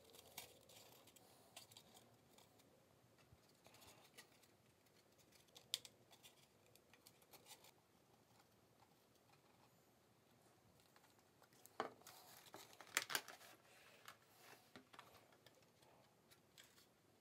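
Mostly near silence, broken by faint clicks and scrapes of hollow lightweight-PLA printed fuselage parts being handled and slid together. There is a sharp click about six seconds in and a short run of louder clicks around twelve to thirteen seconds in.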